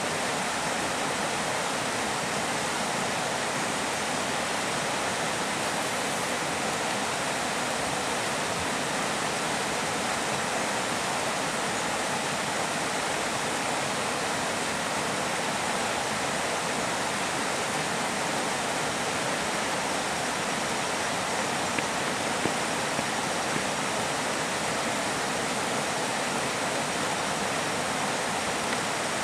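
Steady, unbroken rush of flowing river water, with a few faint clicks about three-quarters of the way through.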